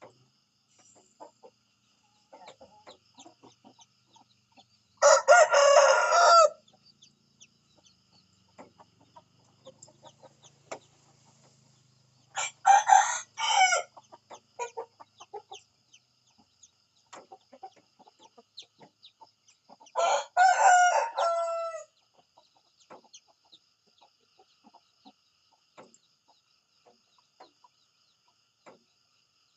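Rooster crowing three times, each crow about a second and a half long and roughly seven seconds apart. Faint scattered ticks and chirps and a faint steady high tone lie between the crows.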